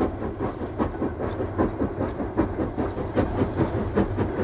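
A train running along the line, with a steady, even beat of about two and a half strokes a second.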